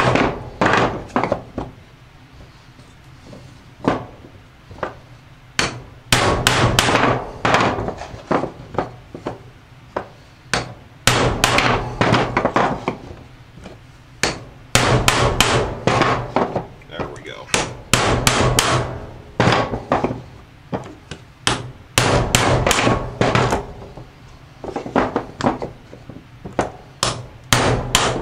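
Hammer striking a metal drift to drive a seized, worn-out bearing out of a Polaris Outlaw's aluminum rear carrier hub, in runs of rapid sharp blows separated by short pauses.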